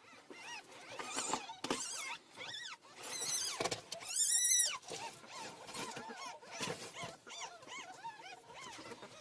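Ferrets squeaking in their nest box: a string of short, high, arching squeals, thickest and loudest from about three to four and a half seconds in.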